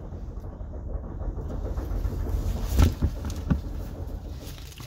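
Cardboard panel being handled and pushed, with a steady low rumble under it and two short knocks about two thirds of a second apart near the middle.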